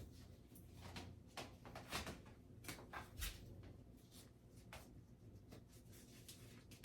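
Faint handling noises of hands working on a wig and hair tools: scattered soft rubs and light clicks, the loudest about two and three seconds in.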